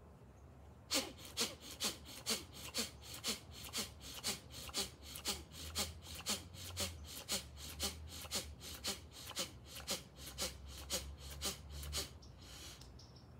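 A man's rapid, forceful pranayama breathing (bhastrika/kapalabhati breath infusion): about two sharp pumped breaths a second, starting about a second in, then one longer, softer breath as the set ends near the end.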